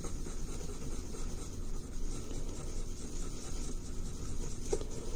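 The stick of a cut-down cotton swab stirring two-part epoxy on a sheet of paper: a soft, continuous scratching and rubbing.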